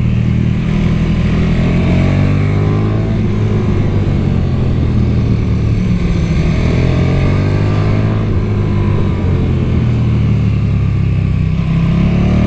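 KTM 1290 Super Duke R's 1301 cc V-twin running through its stock exhaust under way, its pitch rising and falling as the bike accelerates and eases off through bends.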